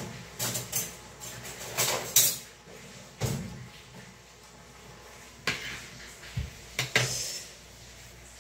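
Kitchen things being handled on a plastic cutting board and stainless-steel counter: a series of sharp knocks and clatters, about five in all, the loudest about two seconds in.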